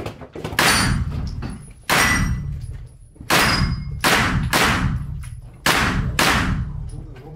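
9 mm low-velocity rifle firing about seven shots at an uneven pace, two of them in quick pairs about half a second apart. Each shot rings out in the echo of an indoor range.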